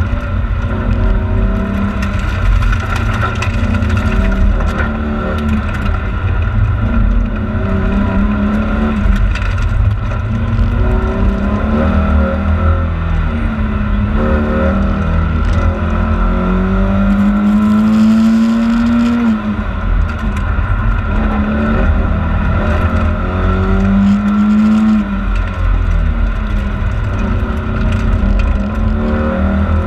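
Volvo 940 rally car's engine heard from inside the cabin, revving up repeatedly and rising in pitch, then dropping back at each gear change or lift, over a steady low rumble of road and drivetrain noise.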